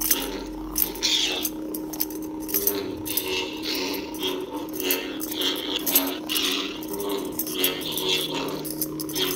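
Lightsaber hilt's Nano Biscotti v4 soundboard playing a sound font: a steady electric hum with swing sounds swelling again and again as the hilt is waved.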